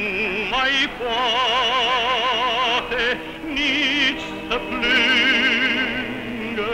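A man singing in an operatic style, holding long notes with a wide vibrato, with short breaks between phrases.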